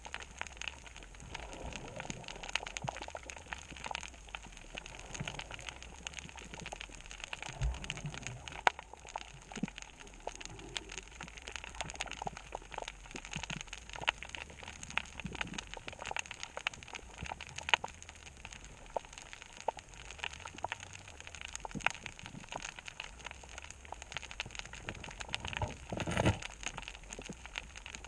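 Underwater reef crackle: a dense, steady patter of fine clicks, typical of snapping shrimp on a coral reef. A brief louder rush comes near the end.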